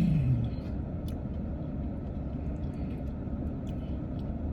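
Steady low rumble of a car's running engine heard inside the cabin, with a few faint clicks.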